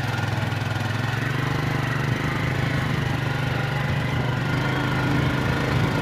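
Motorcycle engine running steadily while riding along, with an even, unchanging beat.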